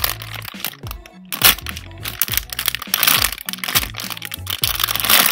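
Thin plastic packaging bag crinkling and crackling loudly as a large strawberry squishy is gripped and squeezed inside it, mostly from about a second in. Background music plays underneath.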